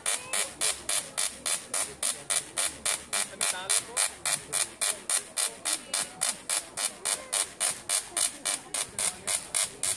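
Tesla coil firing: a steady train of sharp spark bursts, evenly spaced at about four or five a second, as its discharge is drawn toward a pole held up near the top load.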